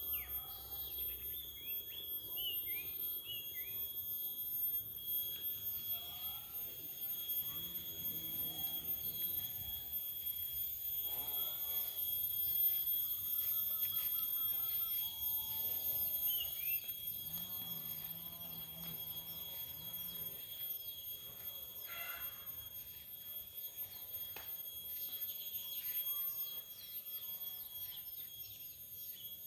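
Birds chirping in short scattered calls over a continuous high-pitched whine, with faint ticking higher up.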